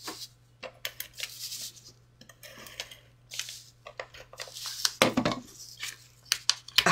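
Paper and card stock rustling and sliding under the hands, with scattered light taps and clicks of craft tools being picked up and set down on a craft mat; a slightly louder handling noise comes about five seconds in.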